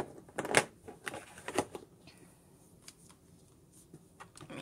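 Several sharp plastic clicks and light rattling as Blick Illustrator markers are handled and put back into their clear plastic case, the loudest click about half a second in.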